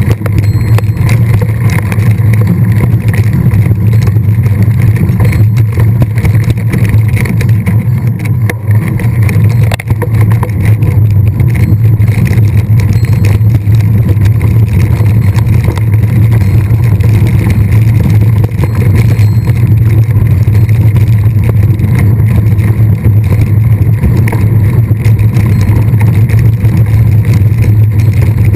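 Mountain bike riding noise picked up on a camera carried by the rider: a loud, steady rumble of wind and tyres on the trail.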